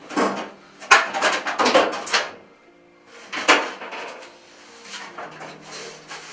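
Several loud bursts of scraping and rattling from hard parts being handled, over background music.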